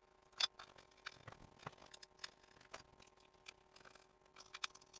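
Faint, scattered clicks and light taps of small screws and tools being handled on an RC car's chassis. The loudest come about half a second in and near the end, over a faint steady hum.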